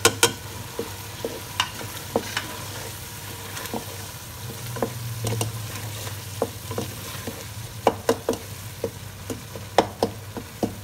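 Wooden spatula stirring and scraping a thick tomato-and-spice mixture frying in oil in a non-stick pot, with irregular sharp clicks of the spatula against the pot over a steady sizzle.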